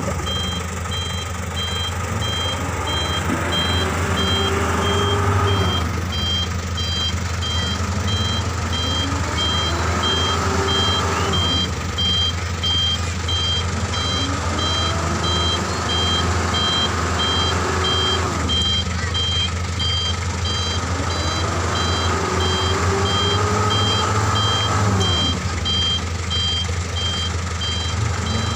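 A truck reversing: its reversing alarm beeps steadily at an even pace over a low engine hum, while the engine's pitch rises and falls several times as it is revved.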